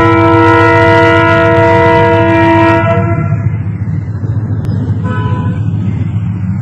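Train horn blaring one long multi-note chord as the train approaches, cutting off about three seconds in. Under it and after it is the low steady rumble of the train running. A brief faint horn toot sounds about five seconds in.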